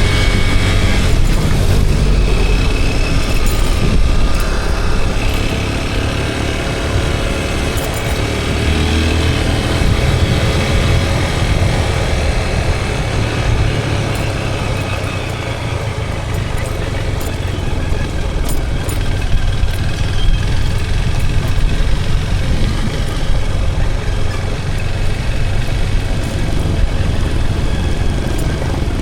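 Motorcycle riding on the road, its engine running steadily under heavy wind noise on the microphone.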